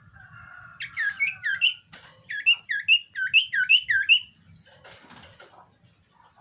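A cipoh (common iora) in breeding condition singing. It gives a held whistle, then a quick run of about eight looping notes, each dropping and then rising, at about four a second.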